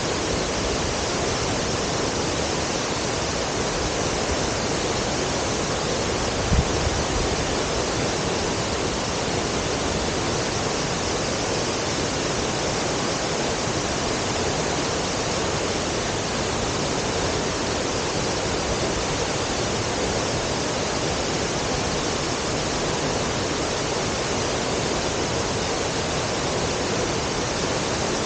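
Tall waterfall, with a drop of about 106 m, pouring steadily in an even rush of water. A brief low thump about six and a half seconds in.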